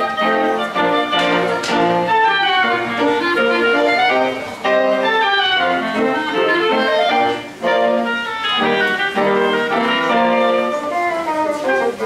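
Live woodwind sextet of flute, oboe, clarinet, French horn, bassoon and piano playing a fast, lively piece in fast runs of notes, with a short break about seven and a half seconds in.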